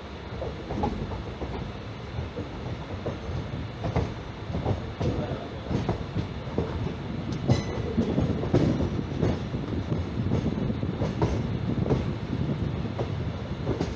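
Passenger train running along the track, heard from an open coach door: a steady rumble of wheels on the rails with irregular clacks over the rail joints, and one sharper knock a little past halfway.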